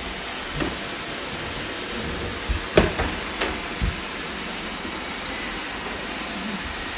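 Several robot vacuums running with a steady whirring hum, with a few sharp knocks, the loudest about three seconds in.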